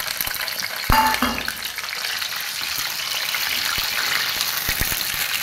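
Halved potatoes sizzling in hot oil in a pan. A spatula knocks against the pan about a second in with a short ring, and a few lighter knocks follow as the potatoes are turned.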